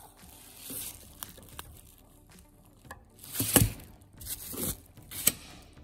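Bubble wrap crinkling and rustling as a hand and a steel vernier caliper move over it, in a few short bursts, the loudest about three and a half seconds in, with a sharp click a little after five seconds.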